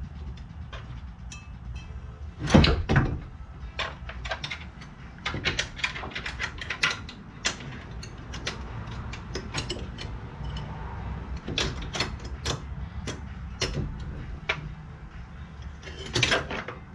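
Scattered clicks and knocks of metal parts and wire being handled at a car's front suspension while the brake assembly is hung up by wire. A loud knock comes about two and a half seconds in and another near the end, over a steady low hum.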